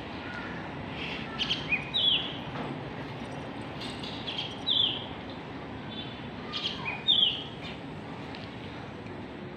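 A bird calling: short, high, falling chirps come in little phrases about every two and a half seconds, over a steady low background hiss.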